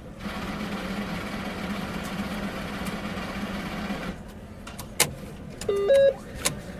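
ATM's internal motorized mechanism whirring steadily for about four seconds, then stopping. A sharp click follows, then a short electronic beep that steps up in pitch, and another click.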